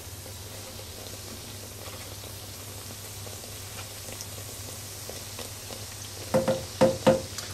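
Yeast doughnuts deep-frying in 180 °C oil in an electric deep fryer basket: a quiet, steady bubbling sizzle, not as loud as fries frying. Three brief, louder sounds come near the end.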